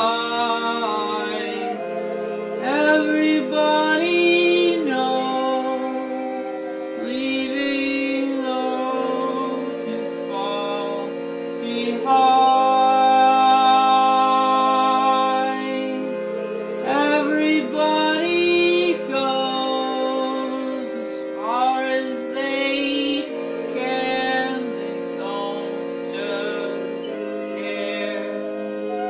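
A song: a voice singing over sustained held chords that change every three to four seconds.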